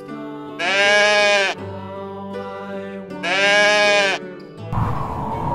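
A goat bleating twice, each bleat about a second long, over background music. Near the end a burst of rushing noise leads into the next music.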